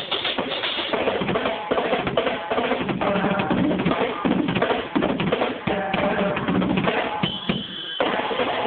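Drum kit played in a busy groove, with kick drum and snare hits close together, during a sound check.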